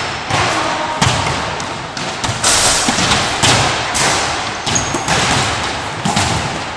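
Basketballs bouncing and thudding on a wooden gym floor, with uneven impacts about once or twice a second, each ringing out in the hall's echo.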